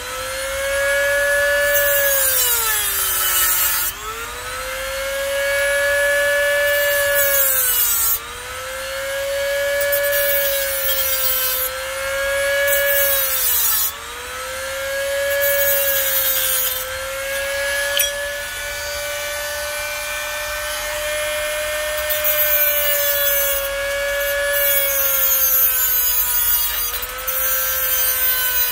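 Small handheld electric mini grinder running steadily with a high whine and a cutting hiss as it cuts into the plastic of a headlight housing. Several times the whine sags in pitch as the tool is pressed into the cut, then picks back up.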